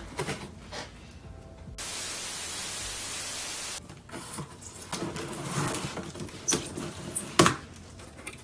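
A large cardboard graphics-card box being handled for unboxing: scattered rustles, taps and knocks, the loudest knock near the end, after a steady hiss lasting about two seconds that starts and stops abruptly.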